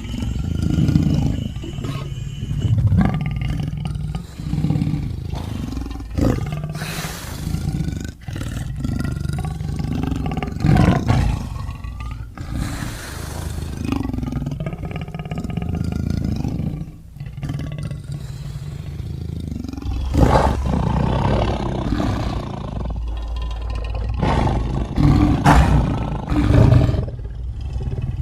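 A string of big-cat roars and growls, stock lion and tiger sound effects played one after another with short breaks.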